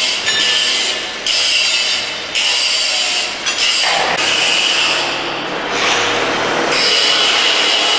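Handheld angle grinder cutting into a steel section with an abrasive disc: a steady, high-pitched grinding whine that dips briefly several times as the disc eases off the metal.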